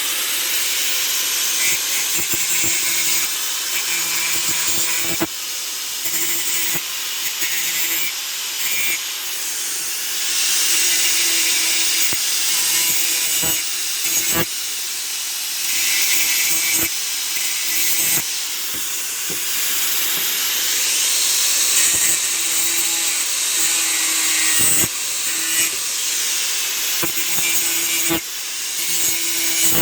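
Angle grinder grinding steel pipe, cleaning it up before a tack weld. It runs with a steady, harsh hiss that swells and eases as the disc is pressed on and lifted off.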